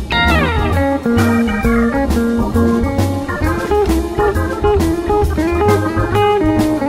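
Background blues music: a guitar line over a steady drum beat, sliding down in pitch right at the start.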